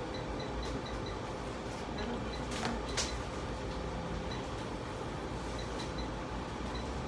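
Convenience store room tone: the steady hum of air conditioning and refrigerated display cases, with two short sharp clicks about three seconds in.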